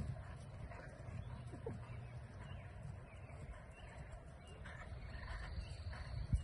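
Open-field ambience: a steady low rumble with a few soft thuds, and a thin high steady tone for about the last second and a half.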